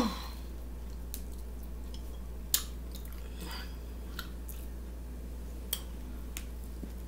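Close-up chewing and mouth noises from eating with the fingers, with a few sharp smacks and clicks spread through, the sharpest about two and a half seconds in, over a steady low hum.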